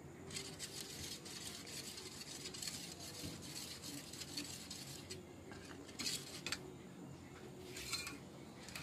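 A spoon stirring and scraping flour-and-sugar batter in a bowl, with a few sharper clinks of the spoon against the bowl later on.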